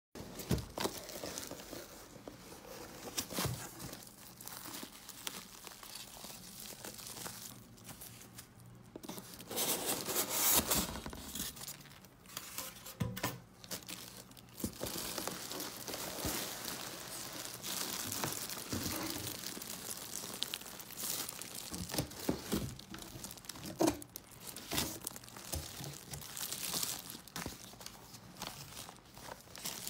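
Cardboard box and plastic wrapping rustling and crinkling as an air fryer is unboxed by hand, with scattered light knocks. The loudest stretch of crinkling comes about ten seconds in.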